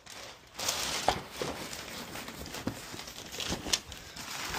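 Cardboard boxes and plastic bags being handled and shifted, rustling and crinkling with several short taps and knocks.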